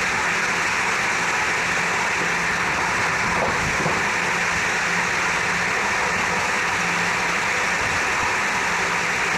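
Steady running noise of an electric train at speed, heard from the front of the train: a constant rushing of wheels and air, with a faint low hum that comes and goes.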